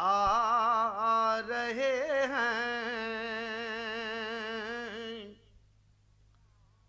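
A man reciting a naat unaccompanied, holding one long wavering note that stops about five seconds in.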